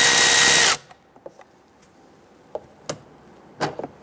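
A cordless power driver with a 10 mm socket spins out a door-panel bolt with a steady whine and stops suddenly under a second in. A few light clicks and taps follow as the bolt and tool are handled.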